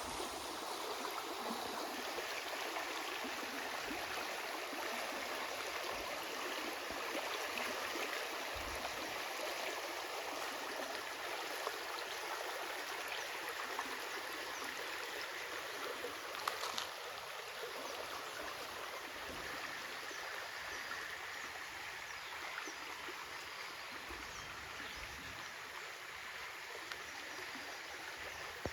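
Small stream flowing steadily, a continuous rush of water with light gurgling and trickling.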